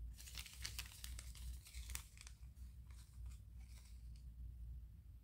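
Small zip-lock plastic bag crinkling as it is handled and pulled open: a quick run of crackles for about two seconds, then fewer, fading out near the end.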